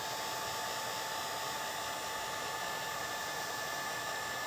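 Wagner paint-removal heat gun running on its low setting, a steady rush of blown air with a faint whine.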